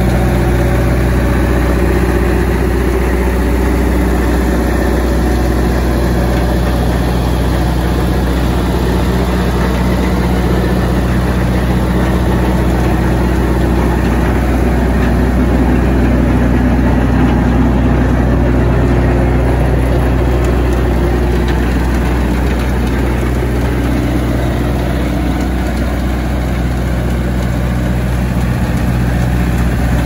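Vermeer BC1000XL wood chipper's diesel engine idling steadily, with a deep, even rumble.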